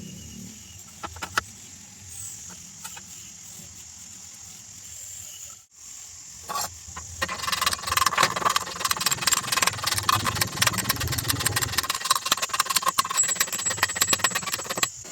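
A few sharp clicks over a low hum, then from about halfway a dense, irregular crackle of metal welding: the sputter of a welding arc laying a bead on steel square pipe.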